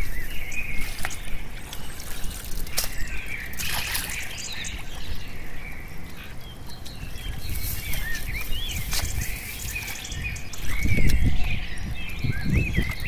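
Small birds chirping over and over, while hands squelch and slosh through wet mud, with heavier sloshes near the end.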